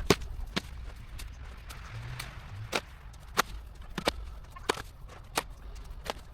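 Footsteps crunching in snow, a sharp, even step about every two-thirds of a second.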